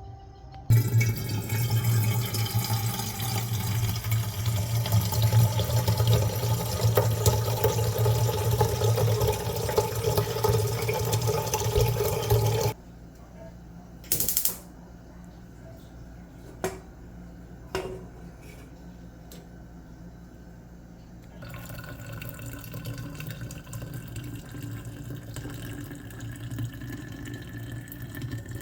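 Water running from a tap for about twelve seconds, then cutting off suddenly. A few short clicks and knocks follow. Then, later on, a quieter steady hiss sets in with a faint, slowly rising tone.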